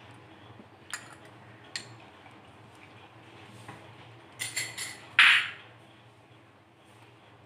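A metal spoon clinking lightly against a glass bowl a couple of times. A quick run of clinks follows about four and a half seconds in, then a short, louder clatter. A low steady hum runs underneath.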